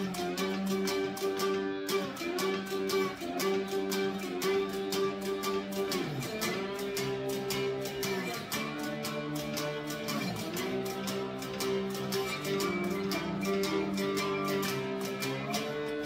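Handmade cigar box guitar playing a blues instrumental break, a steady picked rhythm under the melody. Notes swoop down in pitch and back up about six and ten seconds in.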